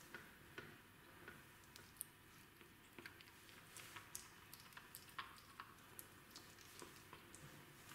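Kitten eating: faint, irregular small clicks and smacks of chewing and licking, otherwise near silence.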